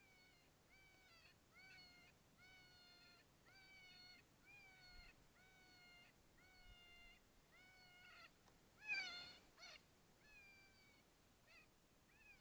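A faint series of short, high mewing animal calls, about two a second, each rising then holding its pitch, with one louder, wavering call about nine seconds in.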